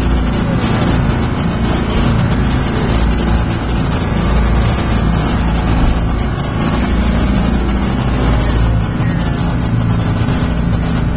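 Ferry's engine running steadily while under way at sea: a constant low drone, with the rush of wind and water over it.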